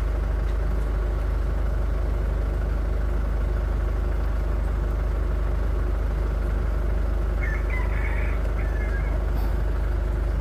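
2011 Ford Ranger's common-rail diesel engine idling steadily.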